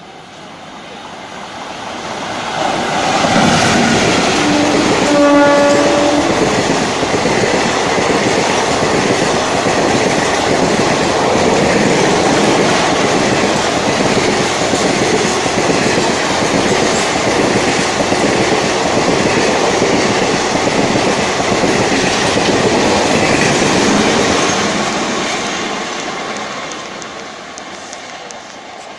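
A train approaches and runs through the station. The locomotive sounds one horn blast about five seconds in, the loudest moment. The wheels then clatter over the rails for about twenty seconds before the sound fades away.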